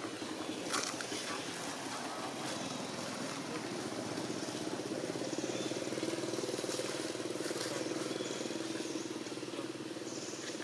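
A steady engine drone, running evenly with no revving, with a few faint clicks over it.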